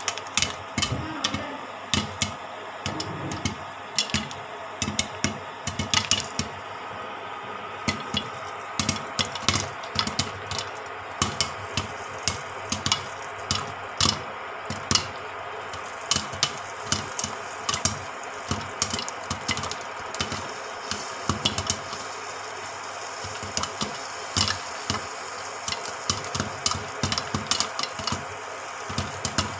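Popcorn kernels popping in a covered pan: irregular sharp pops, a few a second, over a steady hum.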